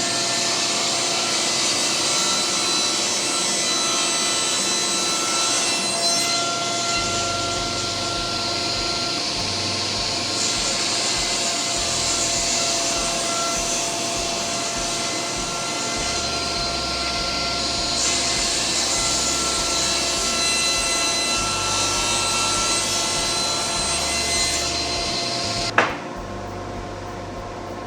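Table saw running and cutting across the grain of a solid maple butcher-block slab, a loud steady rush of blade in hardwood. Near the end a single sharp knock, after which only a quieter steady hum remains.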